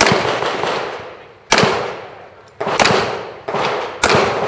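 Semi-automatic pistol firing shots at uneven spacing, each followed by a long echoing tail. There are four shots about a second or less apart, the last two close together.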